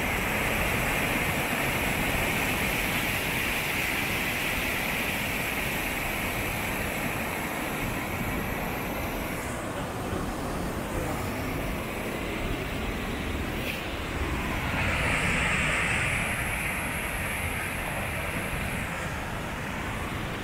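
Waterfall: a steady rushing roar of falling water, swelling slightly for a few seconds about three-quarters of the way through.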